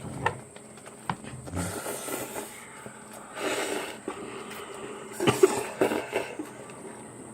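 Mouth noises from eating spicy noodles: slurps and sharp, noisy breaths, twice, with a few quick clicks about five seconds in.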